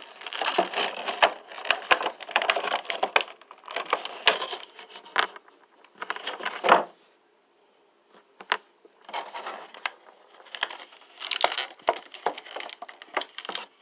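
Plastic action-figure packaging being handled to free the parts: crinkling and rustling with sharp clicks and snaps, the loudest snap about seven seconds in, then a brief pause.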